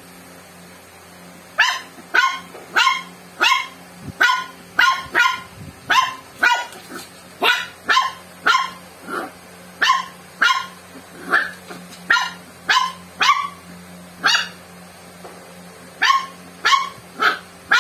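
Six-month-old shih tzu puppy barking over and over at an empty plastic Coca-Cola bottle, short sharp barks about one and a half a second, with a short pause near the end before a few more.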